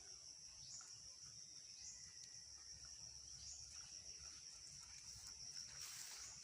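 Faint, steady high-pitched drone of insects, a cricket or cicada chorus. A soft rustle comes in near the end.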